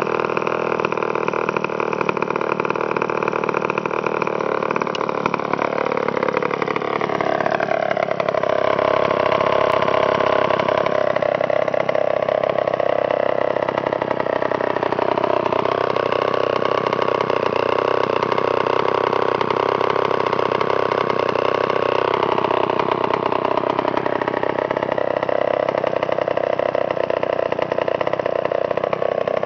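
Vintage Homelite 900-series two-stroke chainsaw running unloaded on the ground, its engine speed shifting a few times, most noticeably a drop about six seconds in.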